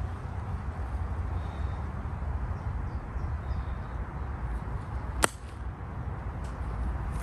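An iron striking a golf ball on a short chip shot: one sharp click about five seconds in, over a steady low rumble.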